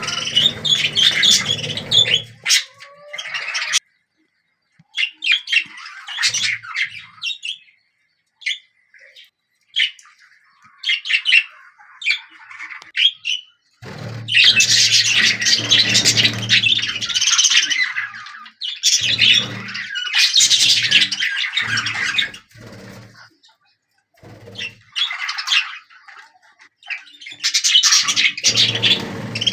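Budgerigars chattering with chirps and squawks in irregular bursts of a few seconds, broken by short pauses.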